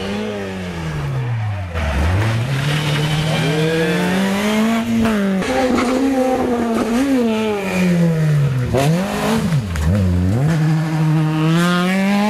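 Rally car engines at full throttle on a tarmac stage, revving up through the gears. The pitch climbs and then falls away sharply at each lift or downshift, with deep dips about two seconds in and again around nine and ten seconds.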